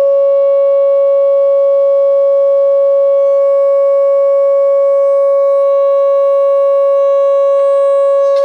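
CT Sounds Pro Audio 8-inch midrange speakers playing a loud, steady sine tone of about 555 Hz, tuned to the crystal wine glass's resonant frequency to try to shatter it. The tone is held so long that it cooks the speakers, and the glass does not break.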